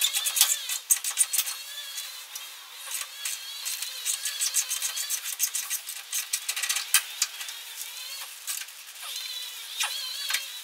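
Hand tools clinking and rattling against metal as bolts on a pickup's rear bumper and bed are worked loose: many short, sharp clicks in an uneven run.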